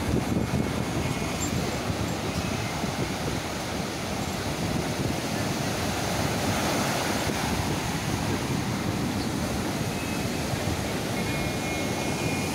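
Sea surf breaking and washing up a sandy beach, a steady rushing noise, with wind on the microphone.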